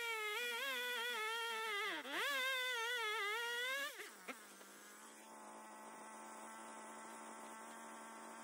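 Two-stroke chainsaw cutting into a large hardwood round, its engine wavering under load and dipping then picking up again about two seconds in. About four seconds in the throttle is released and the saw drops to a quieter, steady idle.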